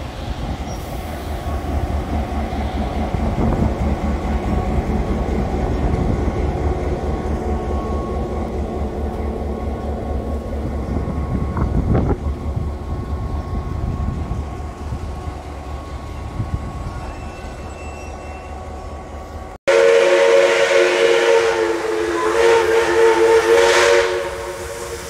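NSW 42-class diesel-electric locomotive 4204 running slowly past with a steady low engine throb. About 20 seconds in, 5917's steam whistle, a D59-class steam locomotive, blows one long blast of about four seconds, several notes sounding together as a chord.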